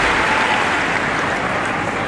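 Tennis crowd applauding between points, a steady clapping that eases slightly toward the end.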